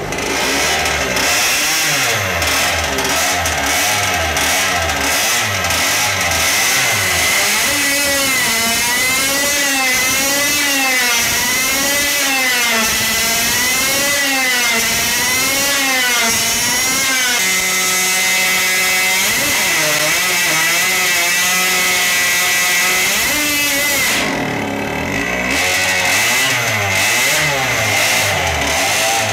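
High-revving two-stroke engine running under dyno brake load, its pitch surging up and down about once a second as the RPM fluctuates with the clutch. It holds steady for several seconds a little past the middle, then starts surging again.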